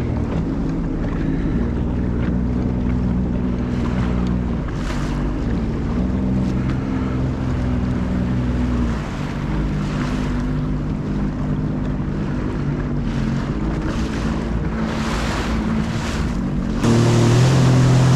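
Sea-Doo Fish Pro jet ski's three-cylinder Rotax engine running at low speed as the craft moves across open sea, with water splashing against the hull and wind on the microphone. The engine gets louder near the end as the throttle is opened.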